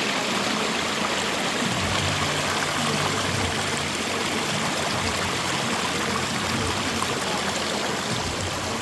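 Waterfall water rushing steadily, an even, unbroken hiss.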